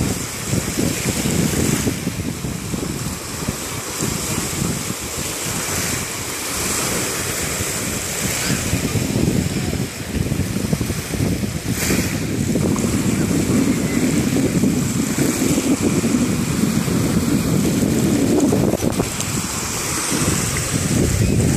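Wind buffeting the microphone, a ragged low rumble over the steady hiss of small waves washing on a shallow sea beach.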